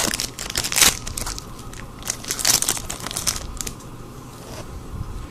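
Foil wrapper of a Magic: The Gathering booster pack crinkling and tearing open. It comes in bursts: a loud one at the start, another about a second in, and a longer stretch from about two to three and a half seconds in.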